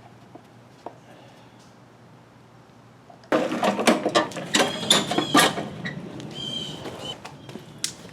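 Metal tools and mower parts clattering and clicking, starting about three seconds in after a quiet stretch and easing into a lighter, ringing rattle near the end.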